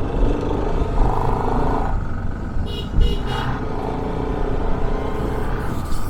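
Road noise of a motorcycle on the move in traffic: steady low engine rumble mixed with wind on the microphone. A vehicle horn gives three quick short beeps a little under three seconds in, then one more brief toot.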